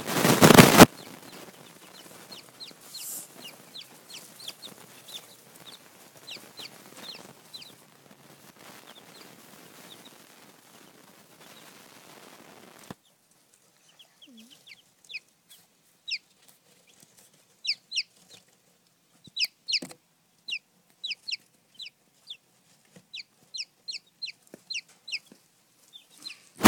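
Baby chicks peeping: many short, high cheeps, each falling in pitch, repeated singly and in quick runs. A loud burst of noise comes in the first second.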